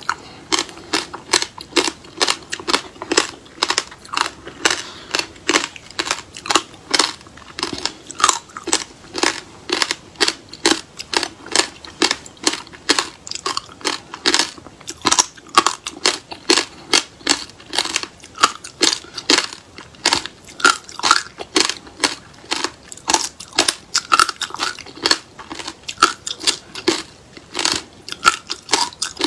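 Chewing of frozen passion fruit pulp and its seeds: a continuous run of crisp crunches, several a second.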